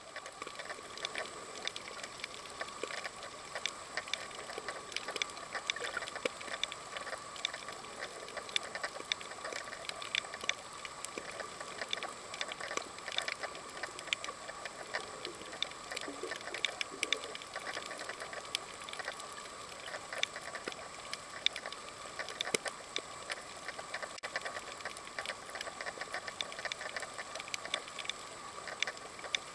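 Underwater reef ambience: a dense, irregular crackle of many tiny clicks, the sound of snapping shrimp on a shallow coral reef, over a steady faint tone.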